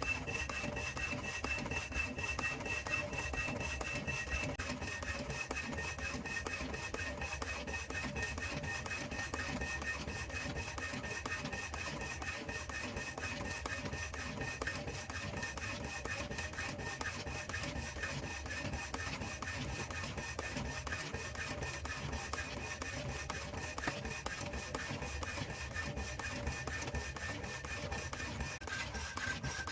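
Homemade power hacksaw, driven by a washing machine motor, running and rasping through a cut, with a steady motor whine. The whine drifts slightly lower and drops to a clearly lower pitch near the end.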